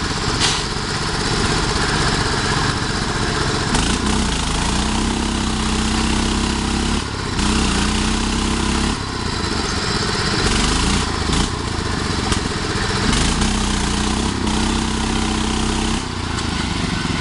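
Small lawn tractor engines running hard under load as one mud-stuck garden tractor is towed out by rope. The engine pitch rises and falls every few seconds over a steady low hum.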